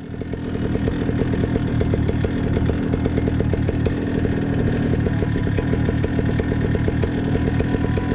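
Paramotor engine running steadily at low throttle before launch, an even, fast pulsing. It fades in over the first second.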